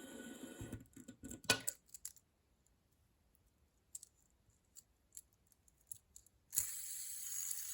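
Small sharp clicks from handling a fidget toy: a quick cluster about a second in, then scattered single clicks. Near the end a steady hiss begins.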